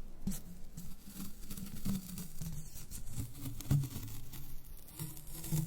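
ASMR ear-cleaning sounds: soft, irregular rubbing and light scratching with faint clicks, close on the microphone.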